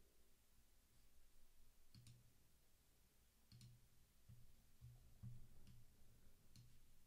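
Near silence: quiet room tone with a handful of faint clicks, each paired with a low thump, from about two seconds in.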